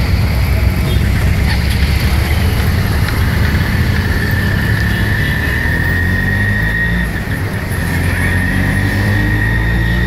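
Auto-rickshaw's small engine running as it rides through traffic, heard from inside the open cab, its note climbing over the last few seconds as it picks up speed. A steady high whine joins about four seconds in.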